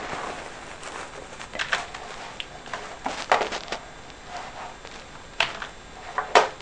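Scattered clicks and taps of a computer keyboard and mouse as a program is closed and another window brought up, with a small cluster of keystrokes about three seconds in.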